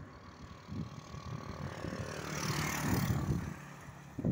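A vehicle passing on the road, swelling and fading about two to three seconds in, over rumbling wind noise on the microphone.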